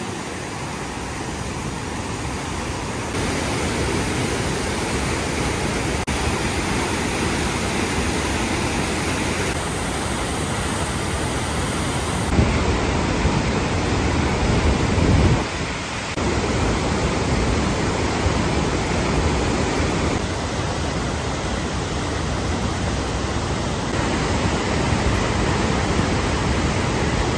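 Lower Kern River whitewater rapids running at high snowmelt flow: a loud, steady rush of churning water. Its tone shifts abruptly a few times.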